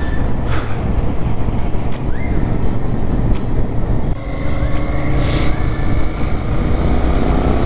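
Royal Enfield Interceptor 650's parallel-twin engine running steadily under way, mixed with a heavy, steady rumble of wind on the microphone.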